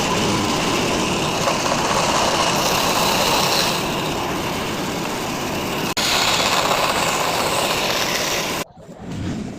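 Woodworking power tool running with a loud, steady rushing noise. There is a brief break about six seconds in, and the sound cuts off abruptly near the end.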